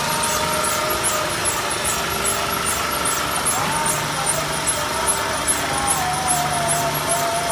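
Lightweight concrete block wire-cutting machine running: a steady mechanical noise with wavering whining tones over it and a regular high ticking about three times a second.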